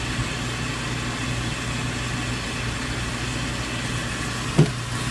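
Water rushing steadily from a hose wand into a mop bucket of soapy water, over a low steady hum. A brief squeak comes about four and a half seconds in.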